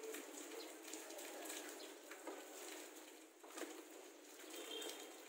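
Faint scattered light clicks and taps from handling a plywood board and hand tools, over a quiet steady background hiss, with a brief high chirp near the end.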